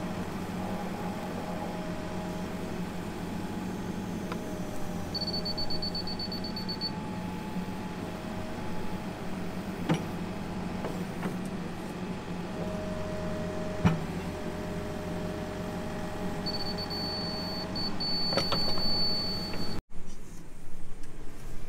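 Case backhoe's diesel engine running steadily while it digs a trench, with a couple of knocks from the bucket. A high electronic beeping from a laser-level receiver comes twice: rapid beeps for a couple of seconds, then near the end beeps that settle into one steady tone. After a sudden break right at the end, a louder, uneven noise follows.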